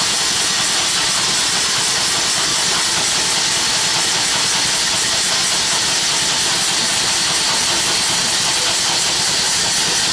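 Steam hissing steadily from a single-cylinder double-acting steam engine with Stephenson link reverse gear.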